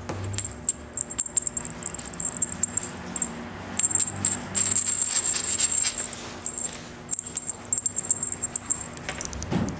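A cat wand toy on a string rattling in quick, irregular bursts as it is jerked and dragged across a tabletop for a kitten to chase.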